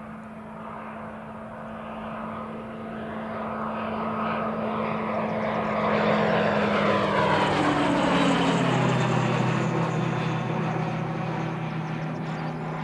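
Scale Wings SW-51 Mustang replica flying past: the drone of its engine and propeller grows louder, drops in pitch about two-thirds of the way through as the aircraft goes by, then fades.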